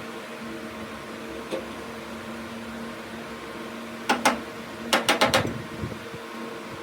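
A machine's steady hum, with two sharp knocks about four seconds in and a quick run of four or five more about a second later.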